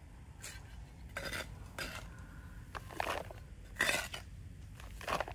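Several irregular clinks and knocks of hard objects being handled, about six over five seconds.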